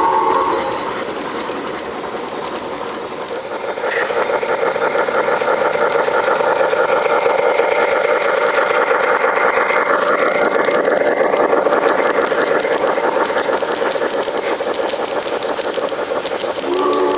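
Large-scale garden-railway model train running past on its track: a steady mechanical whir of motor and gearing over a fast clatter of wheels on the rails, louder from about four seconds in. A train whistle trails off at the very start and another begins just before the end.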